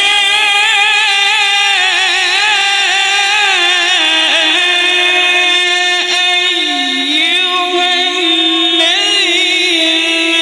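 Male qori reciting the Quran in melodic tilawah style, one long unbroken phrase of held notes decorated with rapid wavering melismatic turns, dipping lower about two-thirds of the way through.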